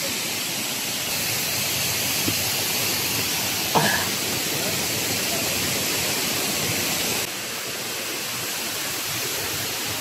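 Steady rushing of water, an even hiss. About four seconds in there is a brief short rising call, and the level drops slightly about seven seconds in.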